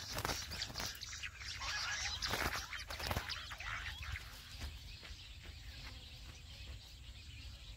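Jungle bush quail calls: a run of short, sharp chirping notes, busiest about two to three seconds in, then thinning out.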